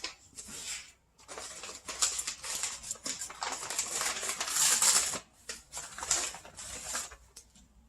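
Packaging being handled and unpacked: irregular crackly rustling that swells through the middle and thins out near the end.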